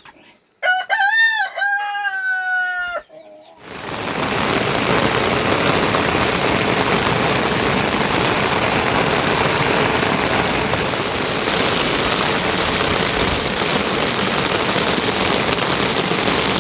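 A rooster crows once, its long call rising and then falling. A few seconds in, a loud, steady hiss of water begins and runs on.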